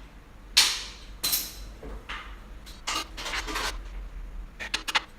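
Short scrapes and a few sharp clicks of metal dolly parts and a screwdriver being handled as screws are fitted into the tray, about five separate scrapes with quick clicks near the end.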